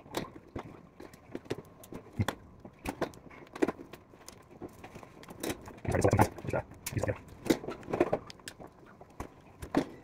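Irregular clicks, taps and rattles of hands working a fridge's plastic wiring loom and polyethylene water-dispenser hose at the bottom of the freezer door, with a cluster of heavier knocks and rubbing about six to eight seconds in.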